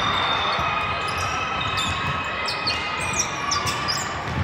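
Play on a hard indoor court: repeated thuds of a ball and feet, with many short high shoe squeaks.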